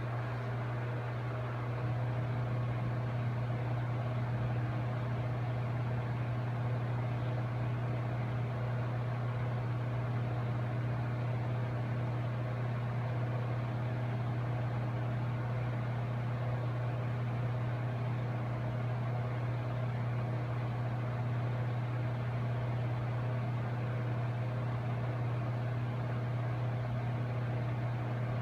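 A mid-2010 27-inch iMac's cooling fans run with a steady hum and a low drone. The hum steps up slightly about two seconds in and then holds. The hard-drive temperature sensor wire has been left unconnected after the SSD swap, a condition typical of driving the iMac's fan to full speed.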